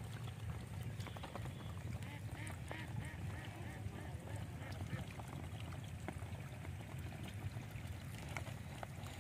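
Steady low rumble of wind on the microphone, with a run of short, quickly repeated animal calls about two to three seconds in.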